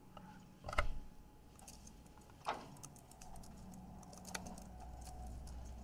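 Laptop keyboard being typed on: scattered soft key clicks, with a louder knock a little under a second in and another about halfway through, over a faint steady room hum.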